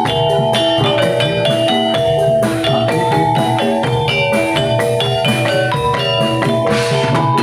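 Javanese gamelan music: metal-keyed mallet instruments play a fast, dense run of struck, ringing notes over a steady drum beat.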